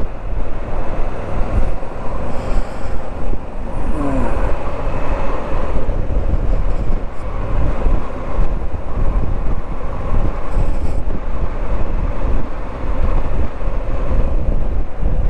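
Moto Guzzi V85TT's air-cooled transverse V-twin running on the move, under heavy buffeting from a strong crosswind on the microphone. It is a loud, steady rumble with rushing wind noise over it.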